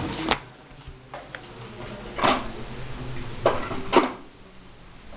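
A few short, sharp clicks and knocks, the loudest about two and four seconds in: small fly-tying tools and thread bobbin being handled at the vise.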